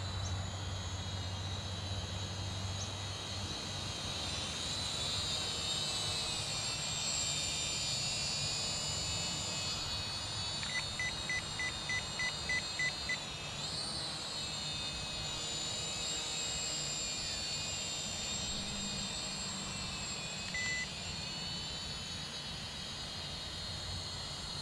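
Small Zero-X Pulse quadcopter drone's propellers whining, several high tones rising and falling in pitch together as it manoeuvres, with a quick swoop up and down about halfway through. A little before that, a run of about nine short, high electronic beeps.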